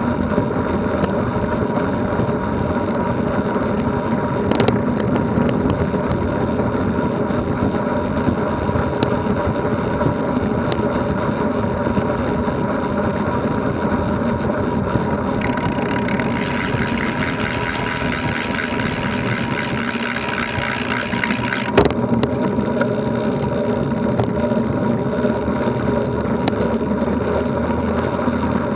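Steady wind rush and tyre noise from a road bike ridden at about 24 mph, picked up by a camera mounted on the bike. A sharp click sounds about three quarters of the way through.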